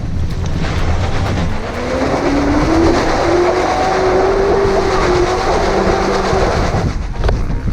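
Lexus LS400's 1UZ-FE 4.0-litre V8 held at high revs, its pitch climbing from about two seconds in and falling away near the end, over a steady low rumble. The throttle is kept down because the failing ECU lets the engine die whenever revs drop.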